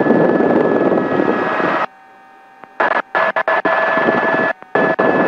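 Helicopter engine and rotor noise heard over the cockpit intercom, a steady noise carrying a steady high tone. It cuts in and out abruptly as the intercom microphone opens and shuts: it drops out about two seconds in, flickers on and off several times around three seconds in, and cuts out briefly again near the end.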